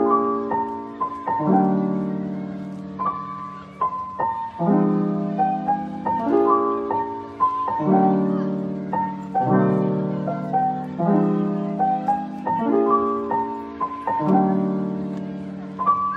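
Background piano music: slow chords struck about every second and a half, each fading out, with a simple melody played above them.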